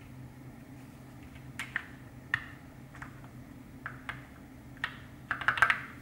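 TOFU HHKB mechanical keyboard with lubed Zealios v2 65g tactile switches, its case dampened with foam and tape: a few separate key clicks, then a quick run of typing near the end, the loudest part.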